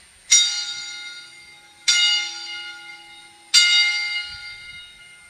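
Altar bell rung three times, about one and a half seconds apart, each ring dying away slowly: the bell that marks the elevation of the chalice after the consecration at Mass.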